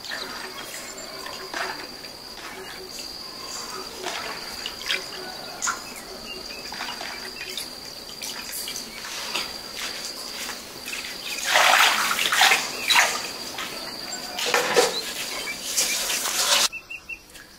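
Insects chirring steadily in a high, constant tone, with scattered clicks and a few louder noisy bursts of handling over it about two-thirds of the way through.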